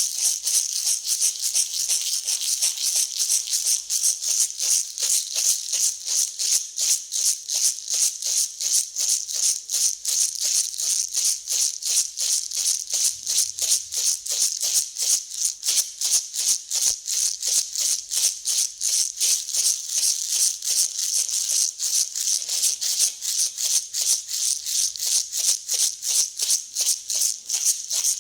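Dry grain being mixed, rattling and hissing in quick, even strokes, about three a second.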